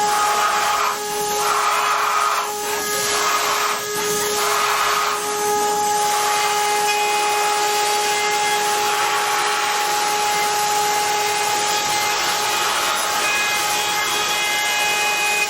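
CNC machine running with a steady high whine from its spindle, with rough, irregular bursts of cutting noise in the first few seconds that settle into an even hiss.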